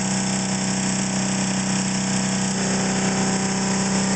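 Bench-top ReGenX generator test rig running at steady speed, one of its coils driven as a motor through a commutator: a steady low hum over a hiss, with a few higher tones joining about two and a half seconds in.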